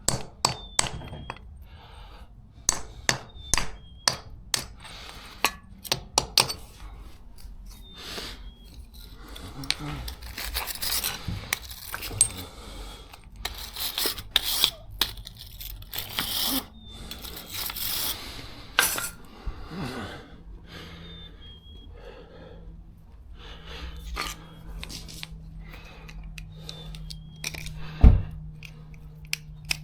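Hand tools and metal parts clinking, knocking and scraping during a car repair: scattered sharp clicks, stretches of scraping, and one louder knock near the end. A faint steady hum comes in about two-thirds of the way through.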